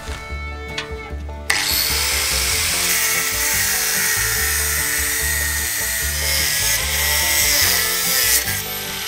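Angle grinder with a cutting disc slicing through the steel spokes of a bicycle wheel. It starts abruptly about a second and a half in, runs loud and steady, and stops shortly before the end.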